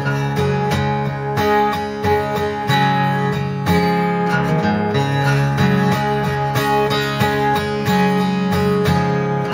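Guitar in an open tuning strummed in a steady repeating chord pattern, playing the song's closing section, which is the same as its intro.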